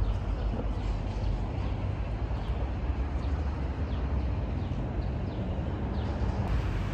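Outdoor ambience while walking: a steady low rumble under a haze of noise, with faint short descending bird chirps about once a second.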